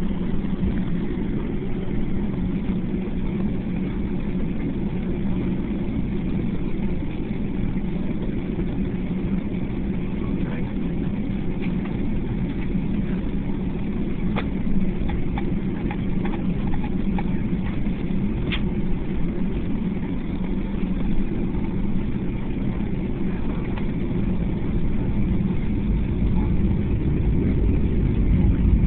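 Boeing 757 cabin noise as the jet rolls on the ground: a steady engine hum and rumble, growing louder near the end.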